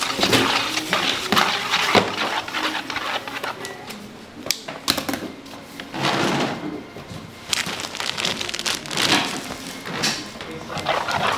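Background music with a few sharp clicks and swells of rustling noise from food-preparation work.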